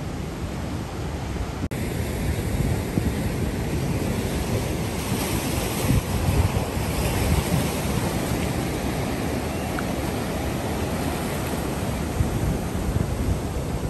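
Ocean surf breaking and washing over a rocky shore, with wind noise on the microphone. The sound drops out for an instant about two seconds in.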